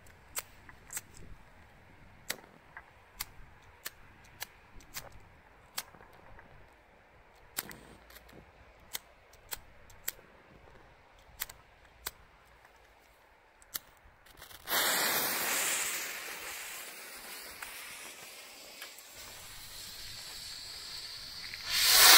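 Firework rocket fuse crackling with scattered sharp pops, one or two a second, then a loud hissing spray that sets in suddenly about fifteen seconds in and slowly fades. Near the end the Tai Pan Dark Angel II rocket's motor ignites with a loud rushing hiss as it lifts off.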